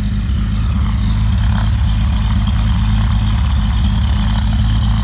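A 2018 Chevrolet Corvette's V8 idling steadily, its sound mostly low-pitched and even.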